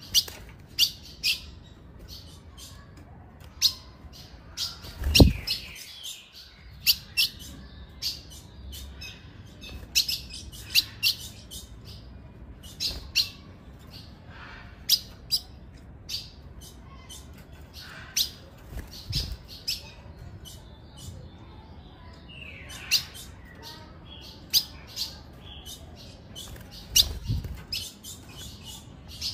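Female ultramarine grosbeak (azulão) giving short, sharp chip calls over and over at irregular intervals, sometimes two or three in quick succession. A few dull low thumps come through, the loudest about five seconds in.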